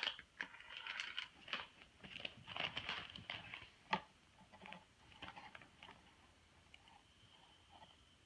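Small clicks and rustling from handling a small plastic lip gloss container, busiest in the first few seconds, with a sharper click about four seconds in, then only faint ticks.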